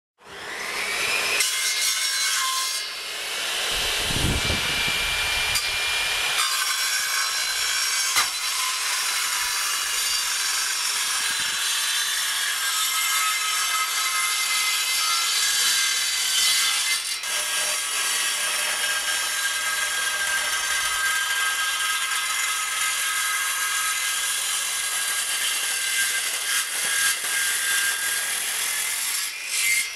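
Bench-mounted table saw ripping wooden planks lengthwise into strips: a steady high whine from the running blade mixed with the noise of the cut, dipping briefly between passes.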